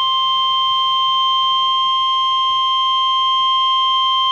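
NOAA Weather Radio warning alarm tone: a loud, steady 1050 Hz tone held unbroken, the signal that alerts receivers to an incoming warning broadcast, here a severe thunderstorm warning.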